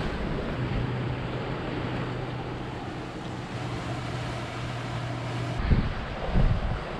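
Sea surf washing over rocks below and wind, with a steady low hum through most of it; about five and a half seconds in, gusts of wind start buffeting the microphone.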